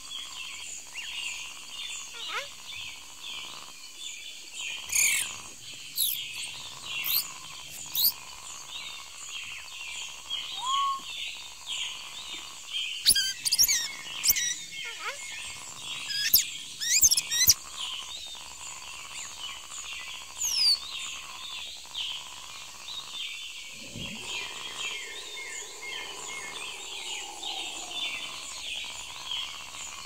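Forest ambience: a steady dense chorus of chirping insects with a high, even insect buzz, over which birds call in quick up-and-down whistles, loudest in a burst about halfway through and with a falling whistle about twenty seconds in.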